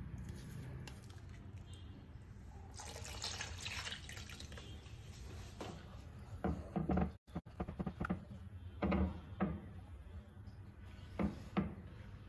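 Water going into a thick masala paste in a nonstick pan, then a spatula stirring the wet paste, with a few soft knocks and scrapes of the spatula against the pan.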